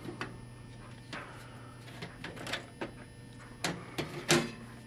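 Side panel door of a PC tower case being worked loose and pulled off: scattered clicks and knocks of the panel against the case frame, the loudest a sharp knock about four seconds in, over a faint steady hum.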